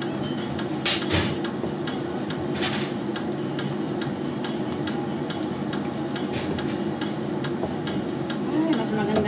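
Oil sizzling steadily around rolls of wrapped glutinous rice frying in a wok. A slotted metal spatula scrapes and knocks against the pan as it turns them, with the sharpest knocks about a second in and again near three seconds.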